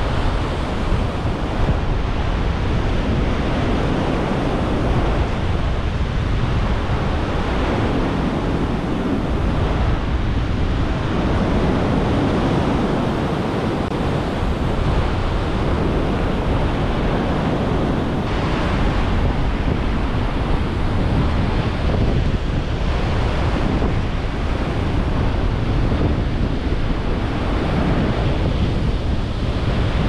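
Gale-force wind buffeting the microphone over rough North Sea surf, a loud, steady noise without a break.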